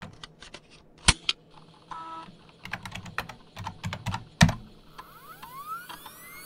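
Computer keyboard keys clicking as a short command is typed, with a louder keystroke about four and a half seconds in as it is entered. A few overlapping electronic tones then sweep upward in pitch as the program starts loading.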